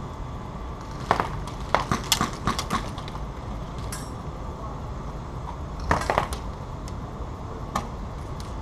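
Airsoft skirmish: scattered sharp clicks and snaps, some in quick runs of several, over a steady low background noise.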